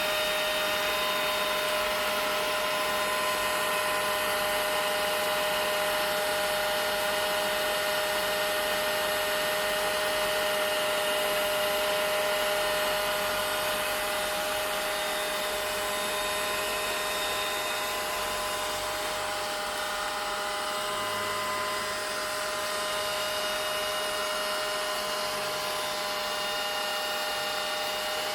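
Vacuum cleaner running steadily, its motor's whine held at one pitch over the rush of air. The level eases down slightly about halfway through.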